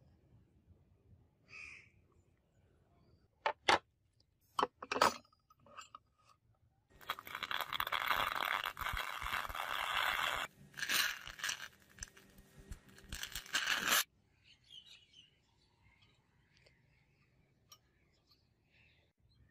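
A few sharp metal clinks about three and a half to five seconds in, then electric arc welding on a steel blade crackling for about seven seconds, with a brief break partway through, cutting off suddenly.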